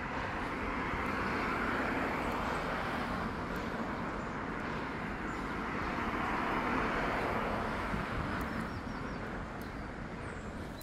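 Road traffic passing on an adjacent road: tyre and engine noise that swells twice, about two seconds in and again past the middle, then eases off.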